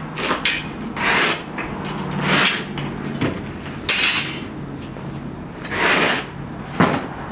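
Long metal bread hook and scraper scraping against the clay wall of a tandoor as baked Samarkand non are pried loose and lifted out. There are about six short, rough scrapes, one every second or so, over a steady low hum.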